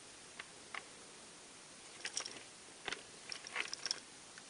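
Hands handling a hard ABS plastic airsoft helmet replica: faint scattered clicks, taps and rustles, a couple of single ticks and then a busier cluster from about two seconds in.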